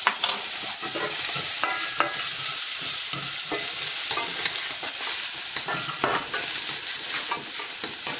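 Diced onion, garlic and bacon sizzling steadily in oil in stainless steel saucepans, with irregular scrapes and clinks of a metal slotted spatula stirring against the pan.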